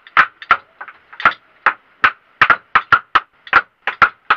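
Hammer blows, quick and steady at about three to four a second, each a sharp ringing knock, as a bed frame is hammered during repair.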